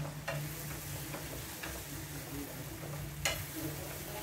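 Eggs in tomato sauce sizzling in a frying pan while being stirred, with a few sharp taps of the utensil against the pan, the loudest a little after three seconds in.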